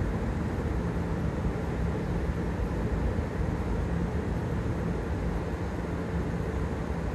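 Steady low rumble of heavy machinery, with a faint steady hum running through it and no distinct knocks or changes.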